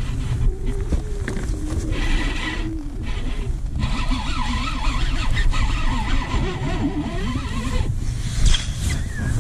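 Wind buffeting the camera microphone: a dense low rumble that gusts and eases, with short lulls.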